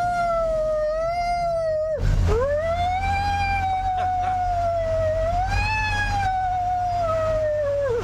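A man imitating a fire-truck siren with his voice in a high falsetto howl. The pitch rises and wavers, breaks for a breath about two seconds in, then climbs again and holds before dropping away near the end. A steady low engine hum from the truck lies under it.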